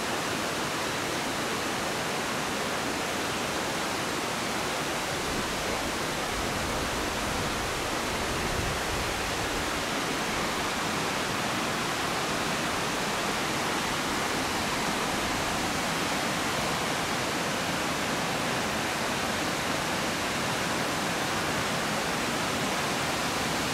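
Steady rushing of a mountain creek cascading down a partly iced-over waterfall and over granite boulders, an even, unbroken water noise.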